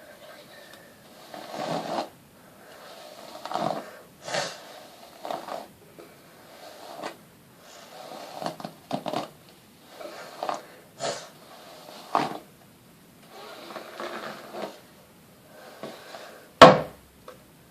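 Irregular knocks and rustles, with one much louder sharp knock near the end.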